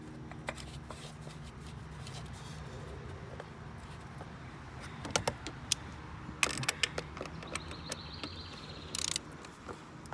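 Light clicks and taps of parts and hand tools being handled while the oil filter cap is screwed on by hand, with a cluster of sharper clicks in the middle and a short rasp near the end.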